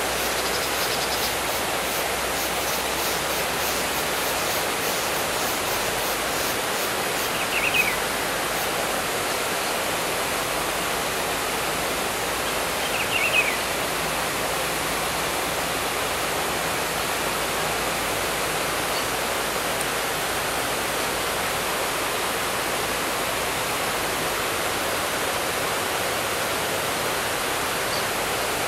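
Steady rushing background noise, broken twice by a short, high bird chirp, about a quarter and about halfway through; the second chirp is the louder.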